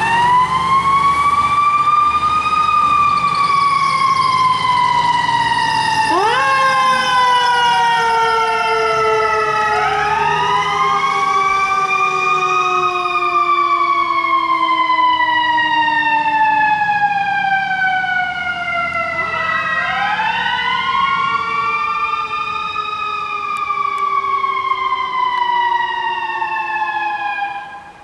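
Sirens of a fire engine and an ambulance on an emergency run. One siren winds up quickly and then slowly falls in pitch, again and again, with a second siren overlapping it, over a truck engine's low rumble. The sirens drop away sharply near the end.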